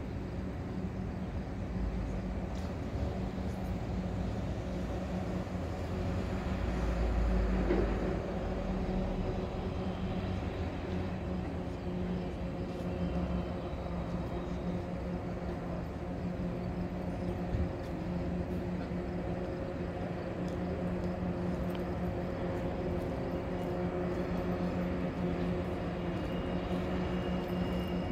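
Commuter train with its locomotive running past at a distance: a steady low engine drone, with a louder low rumble about seven seconds in.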